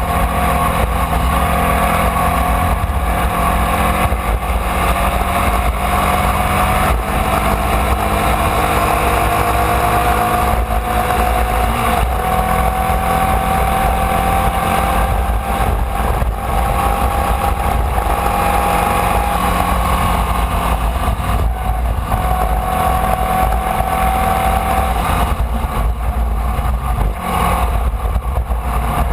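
Formula Vee's air-cooled Volkswagen flat-four engine running hard at speed, heard onboard. Its pitch climbs slowly over long stretches, dips briefly a few times toward the end, then climbs again.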